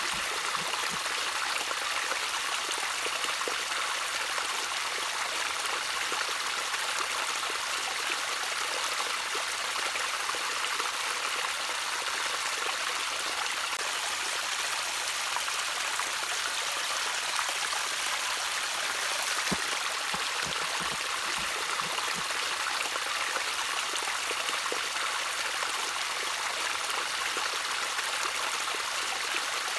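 Small stream of water trickling and splashing steadily, a constant hiss-like rush with no change.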